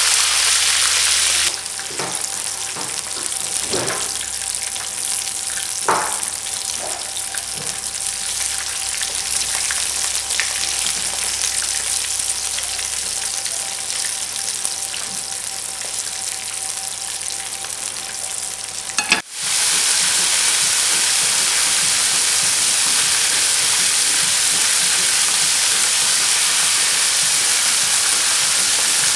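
Rolled pastries deep-frying in a pan of hot oil: a steady sizzling hiss of bubbling oil, with a few faint taps early on. The sizzle gets abruptly louder about two-thirds of the way through.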